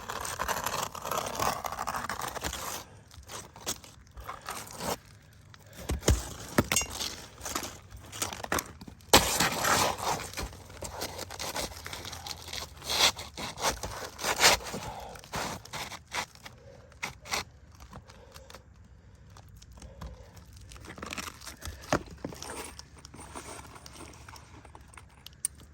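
An asphalt shingle being cut and scraped by hand to remove its seal strip, in irregular scraping and tearing strokes, the loudest about 9 to 10 seconds in, growing fainter in the last several seconds.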